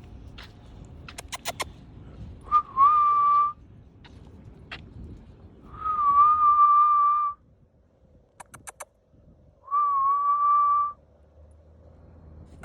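A person whistling three long, steady notes on nearly the same pitch, each about a second long and spaced a few seconds apart. Short runs of quick clicks fall between the notes.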